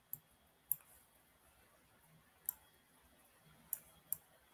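Computer mouse clicking: about six short, sharp, faint clicks at uneven intervals.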